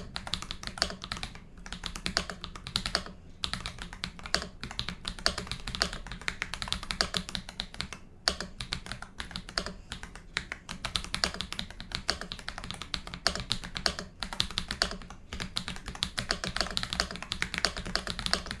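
Continuous fast typing on an Akko 5075B Plus mechanical keyboard with Akko CS Wine White switches and Prunus Lannesiana keycaps: a steady run of sharp keystroke clicks with a few brief pauses.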